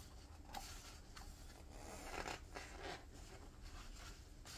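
A page of a hardbound yearbook being turned by hand: faint rustling and sliding of heavy paper in a few short brushes.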